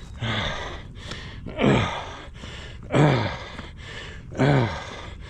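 A man breathing hard from the exertion of a steep uphill climb: four loud voiced exhales, each sliding down in pitch, about one every second and a half.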